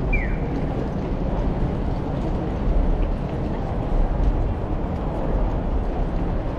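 Busy city street background: a steady low rumble of traffic and crowd noise, with one short high chirp right at the start.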